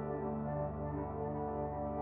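Ambient electronic music: soft, sustained synth tones, several held notes at once that change slowly. Played on an EWI 5000 wind controller through Reason software with effects.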